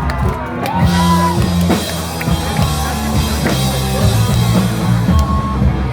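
Rock band playing live, with a drum kit, sustained bass notes and electric guitar.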